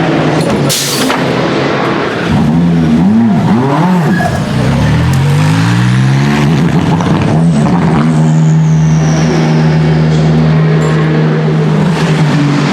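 Ferrari 488 GT3 EVO race car's twin-turbo V8 on track: the engine note swoops up and down through gear changes as the car goes by, then settles into a steady held note from about eight seconds in. A brief sharp crack just under a second in.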